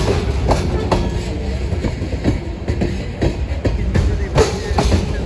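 Freight cars of a CN grain train rolling past, their wheels clacking over rail joints in an irregular rhythm over a steady low rumble.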